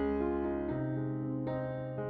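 Background music: soft keyboard chords over a held bass note, with new notes struck about every second.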